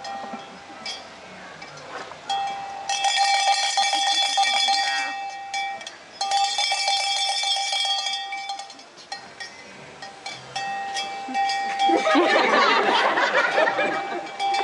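A small metal bell rung rapidly in two runs of about two to three seconds each, a clear ringing pitch over fast repeated strikes. Near the end a loud burst of vocal sound, wavering in pitch.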